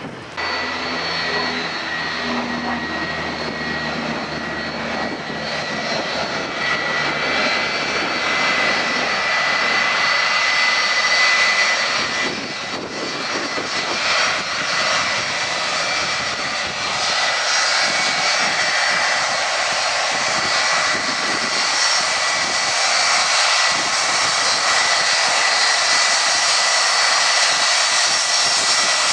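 Boeing 757 twin jet engines running as the airliner rolls out and taxis after landing: a steady high whine over a rushing hiss, a little louder from about a third of the way in.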